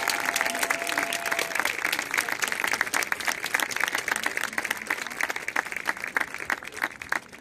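Crowd applauding after a placing is announced, dense clapping that thins out near the end, with one long held cheer over it in the first second or two.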